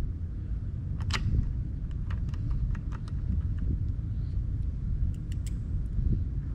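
Scattered light clicks and ticks of small 5 mm screws and a hand tool being handled at a Sea-Doo jet pump housing, with a cluster about two seconds in and a few more near the end. A steady low rumble runs underneath.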